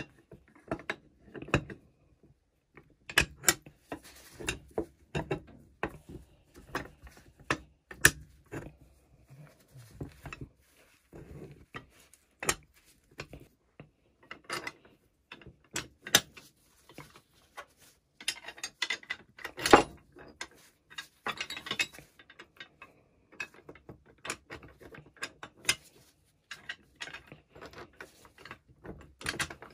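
Metal parts of a pulley block clicking and knocking as it is reassembled by hand: the steel sheave, axle pin and side plates tapping together at an irregular pace, with a short spell of quick rattling about two-thirds of the way in.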